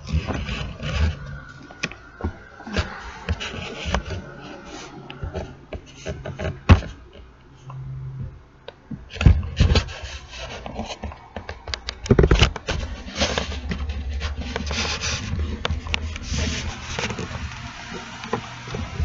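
Handling noise from a handheld camera: rubbing and scraping with scattered knocks and clicks, over a low hum.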